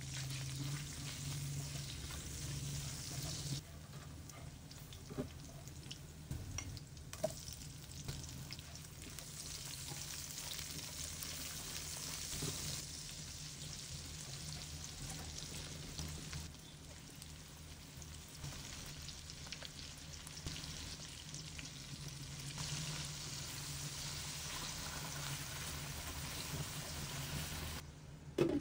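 Garlic, then sliced onions and meat, sizzling in hot oil in a wok, stirred with a spatula that gives small scrapes and taps, over a steady low hum. A sharp knock comes near the end.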